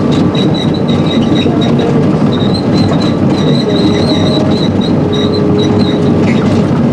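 Excavator travelling on its steel tracks, heard from inside the cab, packing down a rocky road: a steady engine and track rumble with clanking track links and a high squeal that comes and goes.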